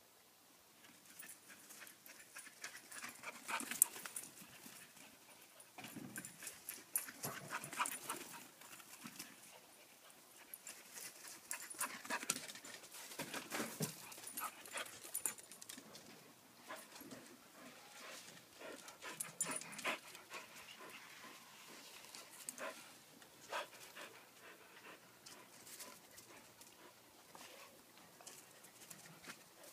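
A Lakeland Terrier puppy and a Soft Coated Wheaten Terrier play-fighting: scuffling and panting, with many quick, irregular clicks and knocks that thin out toward the end.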